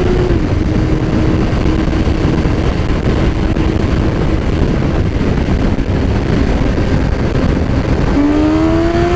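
Sport motorcycle riding at a steady speed under heavy wind rush on the microphone, its engine holding one pitch. Near the end the engine note climbs as the bike accelerates.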